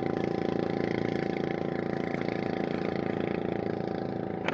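Small boat engine running steadily at a constant low speed. A short sharp knock comes right at the end.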